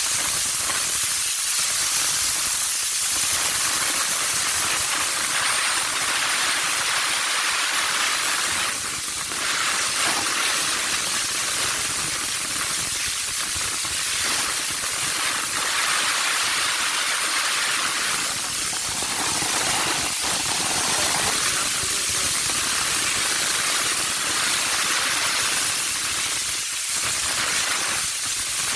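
Handheld steam-cleaner wand jetting steam onto a car's bodywork: a steady, loud hiss.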